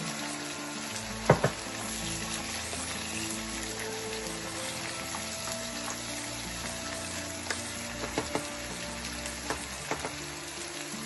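Chopped tomatoes, onion and cashews sizzling steadily in oil in a nonstick frying pan as they are stirred with a spatula. Two sharp knocks on the pan about a second and a half in, and a few lighter taps near the end.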